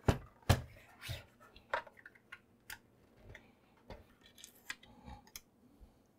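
Sharp clicks and knocks of a printer's hard plastic case being handled and turned over, several strong ones in the first second and a half. After that come fainter scattered ticks as a screwdriver works at the screws inside.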